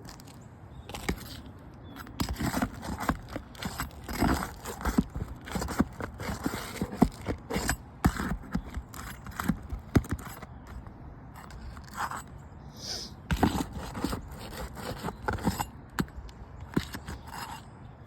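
Irregular scraping and clicking of hand tools working asphalt roof shingles, prying up the tabs and nails, with quicker clusters of scrapes in two spells.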